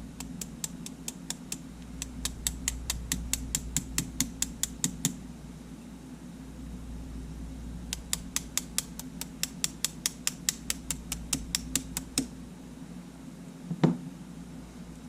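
Rapid, evenly spaced small clicks, about five a second, in two runs, with a single louder thump near the end, over a steady low hum. The clicks are typical of a camera shutter-button switch being pressed over and over to work sand out of its contacts.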